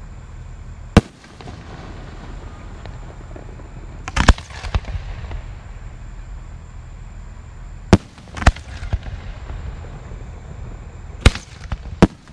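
Aerial fireworks shells bursting overhead: about seven sharp bangs at irregular intervals, some in quick pairs, over a steady low rumble.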